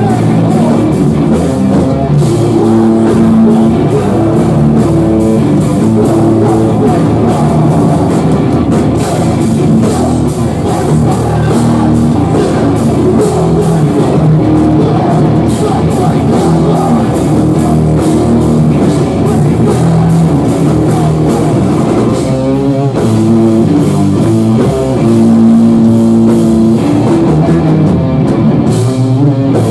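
A heavy rock band playing live and loud: distorted electric guitars over a drum kit, without a break.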